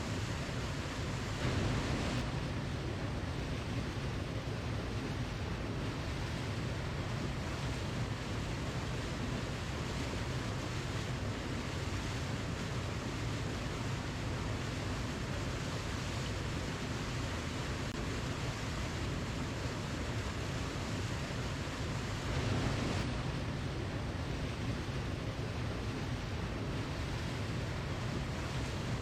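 Waterfall: a steady rush of falling water, heavy in the low end, swelling briefly twice, near the start and about two thirds of the way through.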